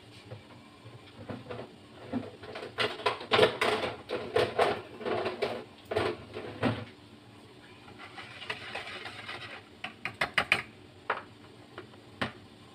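Kitchen utensils handled in a plastic mixing bowl: an irregular run of clicks and knocks for several seconds, a brief soft scraping hiss, then a few quick sharp clinks and one last click near the end, as a wire whisk is lifted out and a metal mesh strainer is set over the bowl.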